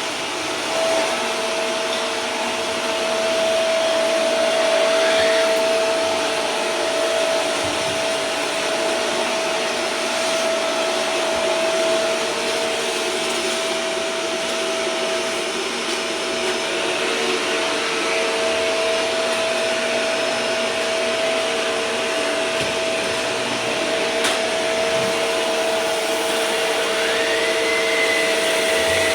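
Vacuum cleaner motor running steadily with an even whine. Near the end a higher whistle rises and then holds.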